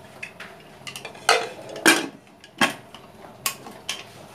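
Aluminium pressure cooker lid being fitted and closed onto the pot: a string of sharp metal clanks and knocks, about seven, the loudest in the middle.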